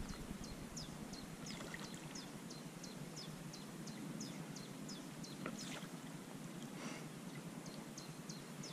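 Light water splashing, a few brief splashes near the middle, as a small hooked fish thrashes at the surface of a lake beside a landing net. Over it a bird calls in a quick run of short, high, falling chirps, about three a second.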